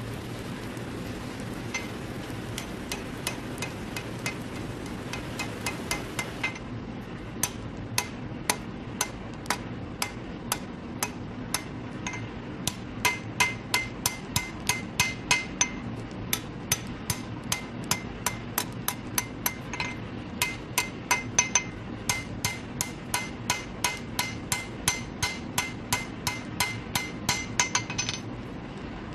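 Hand hammer striking steel on an anvil in an even rhythm of about two blows a second, each blow ringing metallically, as a blade is forged. The blows start faint and grow louder about halfway through, over a steady low rush of background noise.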